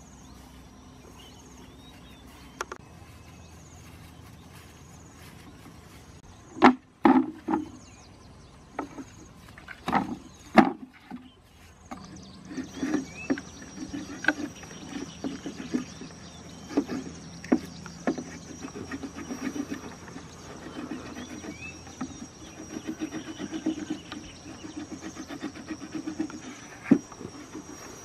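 Knife cutting and scraping into a green bamboo pole, a long run of small quick cuts and scrapes through the second half. Before that, several loud knocks close together.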